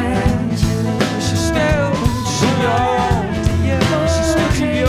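A live band playing a slow song, with a male and a female voice singing over acoustic guitar, cello, double bass and electric guitar.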